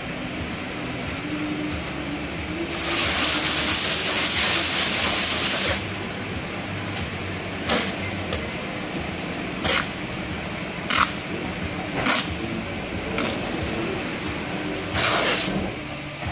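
Compressed air hissing in blasts: one long blast of about three seconds, then a series of short bursts and a last, somewhat longer blast near the end.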